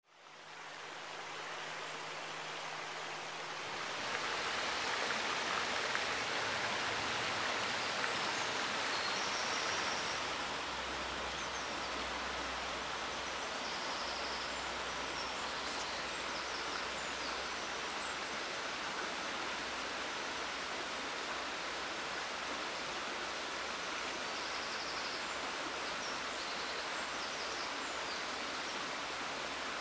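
Shallow rocky stream rushing over stones: a steady wash of running water. It fades in at the start and grows louder about four seconds in.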